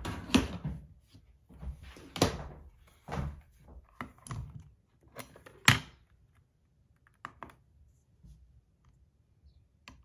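Handling knocks and clacks as a pocket digital scale is set down on a tray and opened, about six sharp hits in the first six seconds, the loudest near the middle. A few lighter clicks follow as it is readied and the spinner is placed on it.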